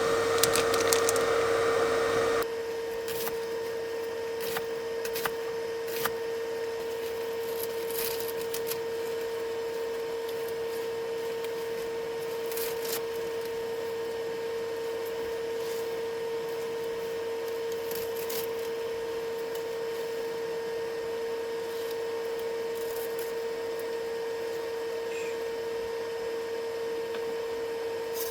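A steady hum at one pitch, with a louder rushing noise over it for the first two seconds and scattered light clicks and knocks after.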